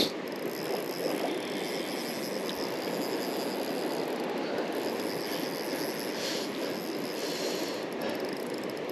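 Steady rush of river water over rapids, an even noise without change, with a short sharp knock right at the start.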